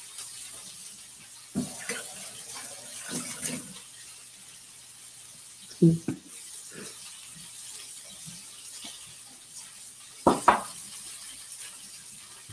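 Food-prep handling at a kitchen counter: scattered soft clatters and knocks of utensils and dishes over a steady faint hiss, with the sharpest knocks about six seconds in and again near ten seconds.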